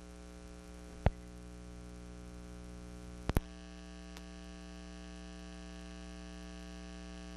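Steady electrical hum from an old film soundtrack running over blank leader, with sharp pops, once about a second in and twice in quick succession past three seconds.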